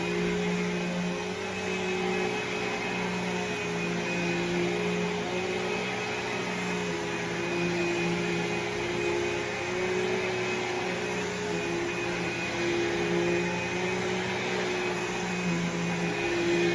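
Vacuum cleaner running steadily, a constant motor hum with a slight waver in pitch.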